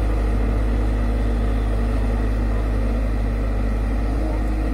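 Tata Hitachi crawler excavator's diesel engine running steadily, a constant low hum.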